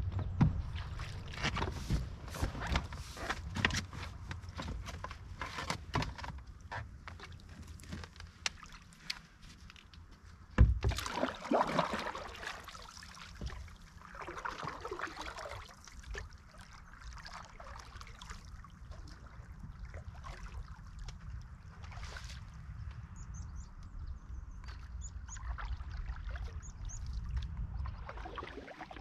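Knocking and clattering of gear against the hull and frame of an Ally folding canoe as it is loaded and boarded, with one heavy thump about ten seconds in. This is followed by softer water sloshing as the canoe is paddled away.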